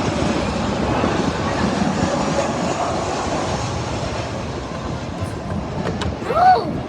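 Jet airliner passing overhead on its landing approach: a loud, steady roar, strongest in the first few seconds and slowly fading. Near the end a short call rises and falls in pitch.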